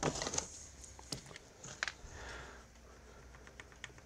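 A few light clicks and knocks of a cordless driver being set down on a wooden workbench and hands handling a motorcycle carburetor's spring-loaded top cover, the sharpest near the start.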